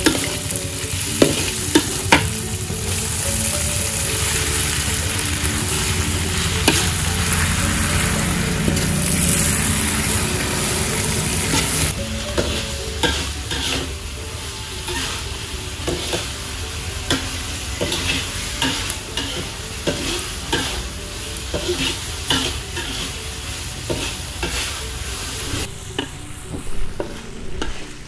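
Chopped sausage, meatballs and egg stir-frying in a metal wok, sizzling steadily while a metal spatula stirs and scrapes against the pan. About halfway through the sizzle drops, and the spatula's scrapes and taps on the wok stand out more.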